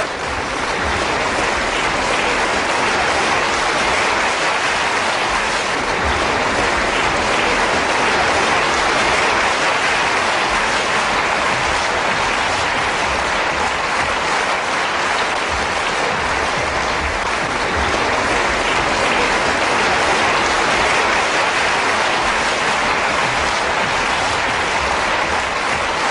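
Large audience in a hall giving a long, steady ovation, the applause unbroken throughout, heard through an old newsreel soundtrack.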